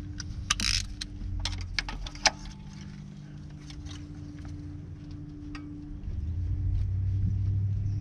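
Irregular metallic clicks and clinks of a spark plug socket on its extension being fitted and worked against a very tight spark plug in a Mercedes M103 engine. A steady low rumble sits underneath and swells about six seconds in.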